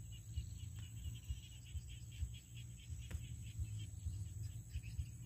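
Crickets chirping in a fast, even pulsing rhythm over a low rumble, with a single click about three seconds in.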